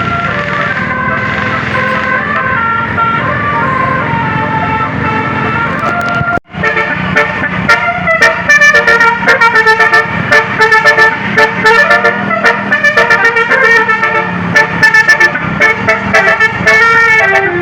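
Bus 'telolet' horn: a set of air horns playing a melody of held notes that step from pitch to pitch. About six and a half seconds in the sound cuts out for an instant, and then a faster, choppier run of horn notes follows.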